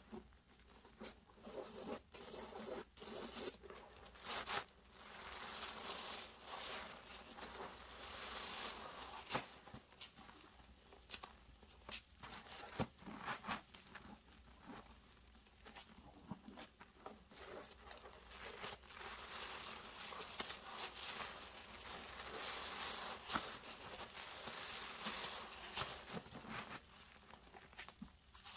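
Rubber-gloved hands squeezing and kneading a sponge soaked in thick Comet cleanser foam: wet squelching with scattered small pops and stretches of fizzing, hissing lather that swell and fade.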